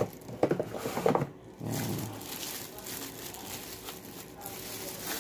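Plastic bag crinkling and rustling as a sound bar is slid out of it and unwrapped by hand.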